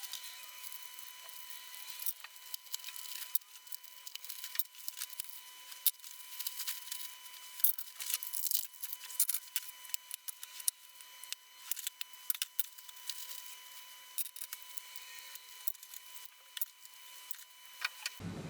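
Hands working with small hard objects: irregular light clicks, taps and rustling, over a faint steady high-pitched tone. Just before the end the sound cuts to a different, lower, steadier noise.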